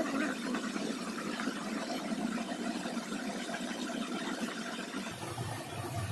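Steady rush of a flowing stream, even and unbroken, with a deeper rumble joining about five seconds in.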